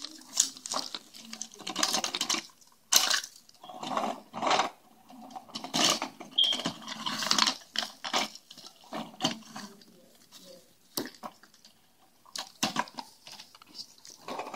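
Hands rummaging through a pile of wooden blocks and plastic candy wrappers on a hardwood floor: crinkling cellophane and wrappers with irregular clacks of wooden blocks, busiest in the first half and thinning out after the middle.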